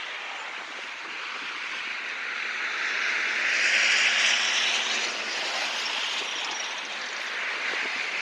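A passing vehicle: a rushing noise with a faint low engine hum that swells to its loudest about halfway through, then fades.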